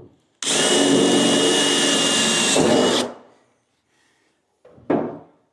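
Power drill running for about two and a half seconds with a steady whine, boring a rivet hole through the Land Rover tub's aluminium rear panel, then cutting off. A short, separate noise follows near the end.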